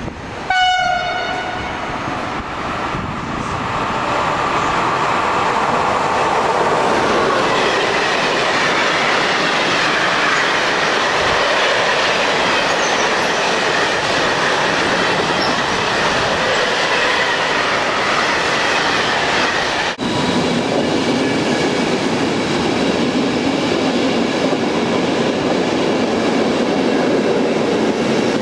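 An Italian E.652 electric locomotive sounds a short horn blast, then its freight train rolls past with steady, loud wheel and rail noise and some clickety-clack over the joints. After a cut about twenty seconds in, another train runs past with similar rolling noise.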